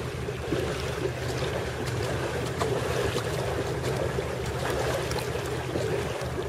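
Water splashing and lapping around a pedal boat under way on a lake, many small splashes in a steady wash, with wind rumbling on the microphone.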